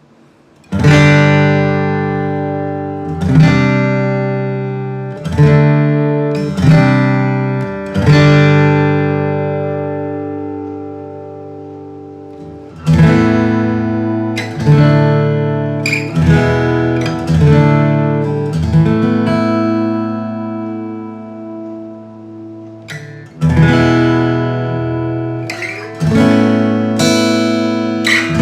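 Hans Bygone DR steel-string acoustic guitar with an Adirondack red spruce top, Indian rosewood back and sides, and phosphor bronze strings, played solo. Chords are struck one at a time and left to ring out and fade, one holding for about five seconds. After about half way, quicker chords and single notes follow.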